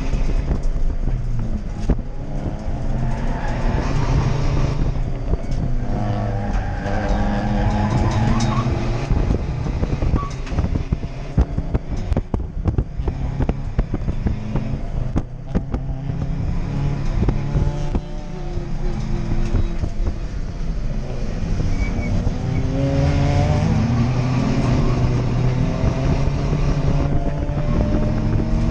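Toyota Yaris D-4D diesel race car's engine heard from inside its stripped cabin while lapping a track. The engine note climbs repeatedly under acceleration and drops back at gear changes and braking, with frequent rattles and knocks from the bare interior.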